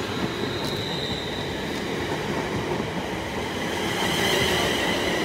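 Electric multiple-unit passenger train moving along the platform, its wheels rumbling steadily on the rails. A high steady whine grows louder about four seconds in.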